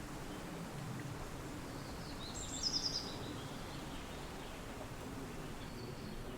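Steady wind with a bird singing a quick run of high notes about halfway through, and a fainter short call near the end.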